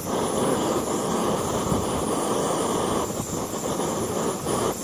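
Ultralight canister gas stove burner running under a pot of water, a steady, even rushing noise of the gas flame, just lit by its piezo igniter.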